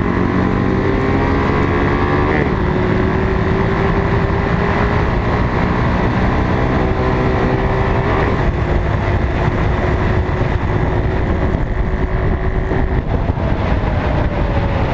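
Off-road motorcycle or quad engine running under load as it rides, its note climbing slowly and dropping sharply twice, about 2.5 s and 8 s in, as it shifts gear. Wind noise on the microphone throughout, and a falling engine note near the end.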